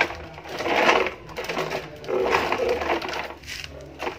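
Plastic toy trucks pushed and dragged over stone paving, their wheels and bodies rattling and scraping in two bursts of about a second each.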